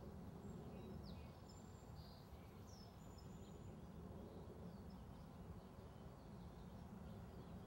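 Faint outdoor ambience: a low steady rumble, with small birds chirping faintly now and then.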